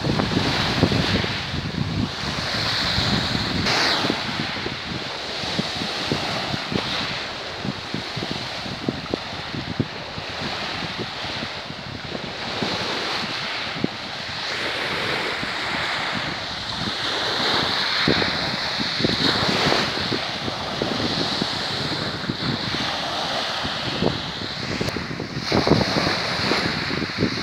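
Small sea waves breaking and washing over a pebble beach, a steady rush of surf with many short clicks in it, with wind rumbling on the microphone.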